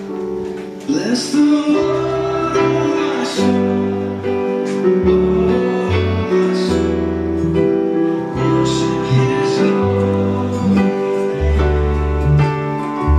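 A small band plays a worship song: held chords on a digital keyboard, acoustic guitar, low bass notes changing every second or so, and a few cymbal crashes.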